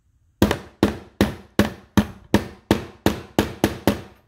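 A small hammer striking a nail into a wooden board, about eleven steady blows that come a little faster near the end, each with a short wooden knock.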